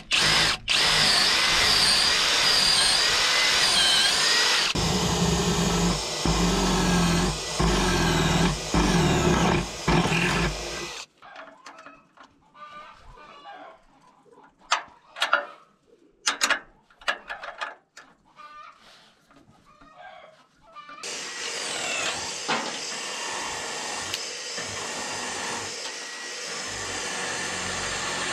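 Cordless drill running under load, boring through 2x4 lumber and into the steel trailer frame beneath it. About eleven seconds in the drilling stops for a stretch of short clicks and knocks of metal while bolts are fitted by hand, and the drill runs again from about twenty seconds in.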